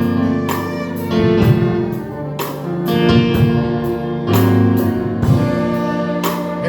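Instrumental worship music: held keyboard and guitar chords over a light, steady beat, with no voices.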